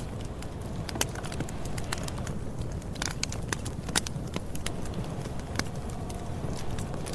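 Campfire burning: a steady low rumble of flames with irregular sharp crackles and pops from the burning wood, a couple of them louder, about a second and four seconds in.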